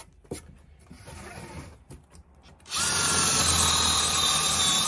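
A cordless drill runs for about two seconds, starting a little past halfway through. Its motor whine rises briefly as it spins up, then holds steady. A few small clicks of handling come before it.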